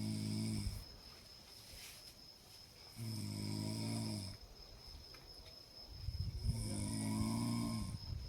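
A sleeping person snoring: three long, deep snores about three seconds apart.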